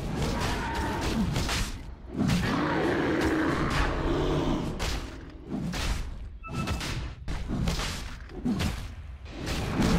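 Video game combat sounds: many thuds and booms in quick succession over music.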